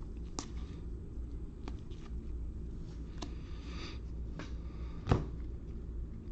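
Trading cards being handled: light clicks and a soft sliding rustle as cards are flipped through, with one louder knock about five seconds in, over a low steady hum.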